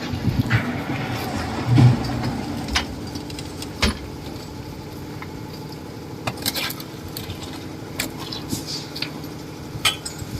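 An engine running steadily, with scattered sharp knocks and clatter over it.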